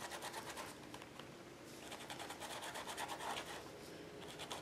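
Stencil brush scrubbing and dabbing paint through a stencil onto journal paper: faint, quick, repeated scratchy strokes.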